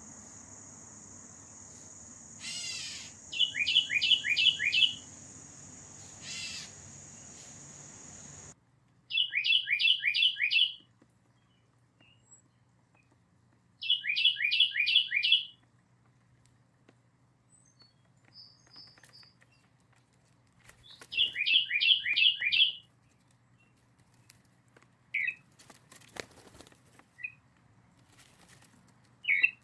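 A songbird singing the same short phrase over and over: a quick run of about five clear, down-slurred whistled notes, repeated every few seconds. A steady high insect-like buzz runs under the first few seconds and cuts off abruptly.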